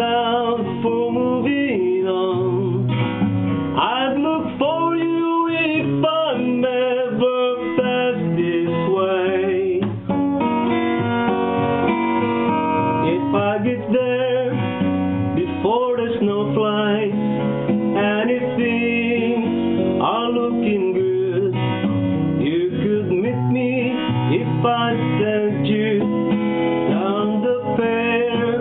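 Acoustic guitar strummed in a country-folk song, with a voice singing over it.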